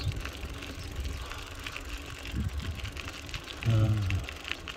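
A bicycle riding along a dirt path: low wind rumble on the microphone and tyre noise, with scattered faint clicks. About three and a half seconds in, the rider gives a brief sigh.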